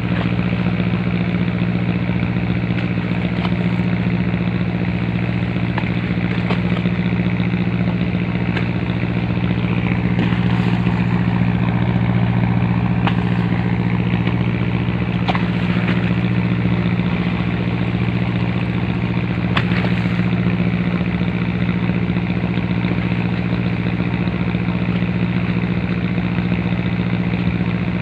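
An engine running steadily at one constant speed, with the rush of fast-flowing seawater under it.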